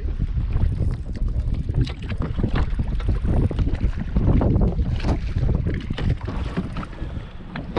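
Wind rumbling on the microphone over water splashing and slapping irregularly against a kayak in choppy waves.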